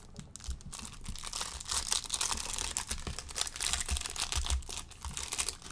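Trading card pack wrapper being torn open and crinkled by hand: a dense run of quick crackles.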